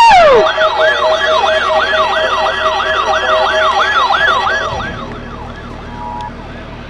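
Electronic emergency-vehicle siren switching from a wail into a fast yelp of about four rise-and-fall cycles a second, fading out about five seconds in. A brief steady tone sounds near the end.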